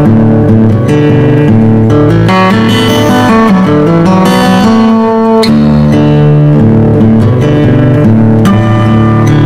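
Instrumental music led by guitar, plucked strings over a bass line, at a steady level.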